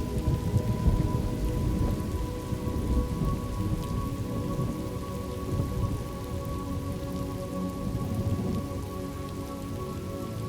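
Steady rain with a low rolling rumble of thunder, strongest in the first few seconds and easing off after. Faint sustained tones hold underneath.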